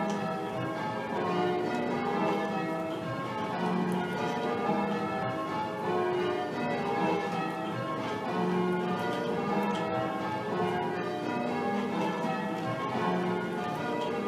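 Church tower bells being rung full-circle in call changes: the bells strike one after another in a steady, repeating row, each note ringing on into the next.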